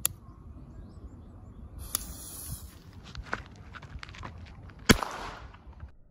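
Small firecrackers going off one after another: a sharp bang right at the start, another about two seconds in, a few lighter cracks, then the loudest bang about five seconds in.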